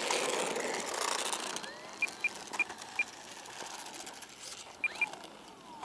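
Short, high electronic beeps, four in a quick run about two seconds in and two more near the end, after a broad rushing noise in the first second and a half.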